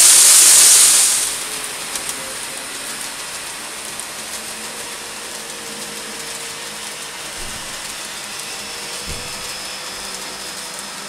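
A loud steady hiss that stops about a second in, then a KATO N-gauge model of the E4 series Shinkansen running on the layout track: small wheels rolling on the rails with faint clicking and a thin motor whine.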